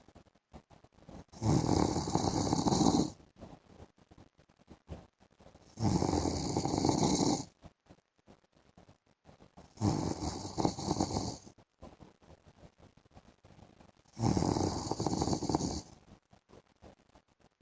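A man snoring in his sleep: four loud snores, each under two seconds, coming about every four seconds with quiet breathing between.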